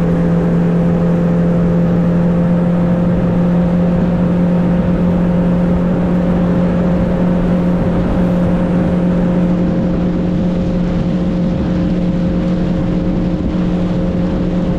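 A fishing boat's outboard motor runs at a steady cruising speed, its hum holding one pitch, over a rush of wind and water as the boat travels across open water.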